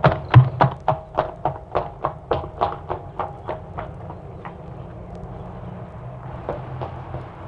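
Horse's hooves clip-clopping at a steady trot, about three or four strikes a second, fading away over the first half. A low steady hum is left, and faint knocks begin again near the end.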